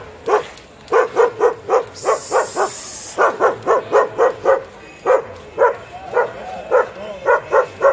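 A dog barking rapidly and repeatedly, about three to four sharp barks a second in runs, with a few whining yelps among them.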